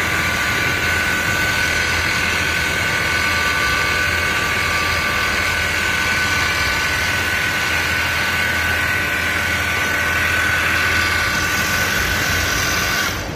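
Richpeace automatic single-head pattern sewing machine stitching at speed: a steady mechanical whine with a held high tone that cuts off near the end.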